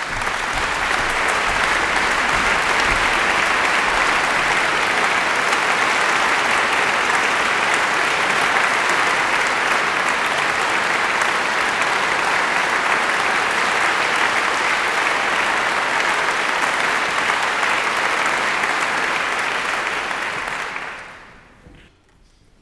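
Concert-hall audience applauding, a dense, steady clapping that dies away about twenty seconds in.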